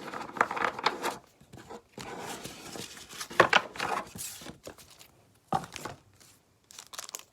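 A trading card pack's wrapper being torn open and crinkled, in several bursts of rustling and crackling that thin out in the second half.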